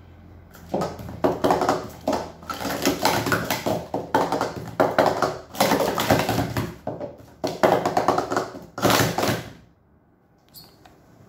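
Plastic sport-stacking cups clattering and knocking rapidly as they are stacked up and down in a timed stacking run; the clatter stops abruptly a little before ten seconds in.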